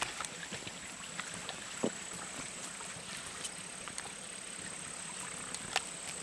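Outdoor ambience of a wet, grassy mountain road: a steady hiss with a thin, high, unbroken insect tone, and scattered light taps and ticks, the loudest about two seconds in and near the end.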